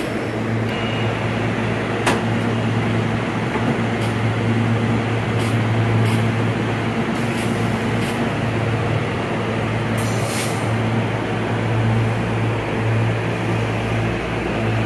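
SEPTA Silverliner IV electric multiple-unit train standing at the platform, its onboard equipment giving a steady low hum. A sharp click comes about two seconds in and a short high hiss about ten seconds in.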